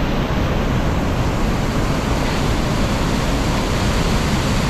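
Loud, steady rush of floodwater pouring down a sandstone cascade: reservoir overflow in heavy spring runoff.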